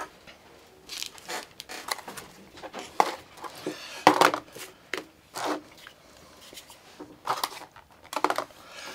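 Handling noise: a plastic blister pack crinkling and a small cordless screwdriver being picked up and set down on a hard perforated tabletop. There are about ten short knocks and rustles, spaced out and irregular.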